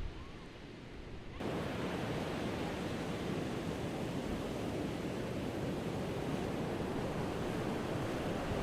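Ocean surf breaking, a steady rushing noise that gets suddenly louder and fuller about a second and a half in.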